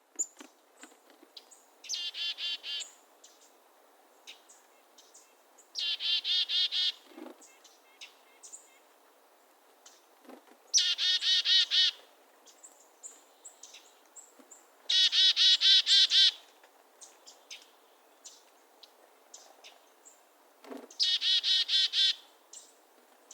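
Birdsong in an open meadow: one bird gives a loud, fast series of repeated harsh notes, about a second long, five times over. Fainter chips and calls from other birds come in between.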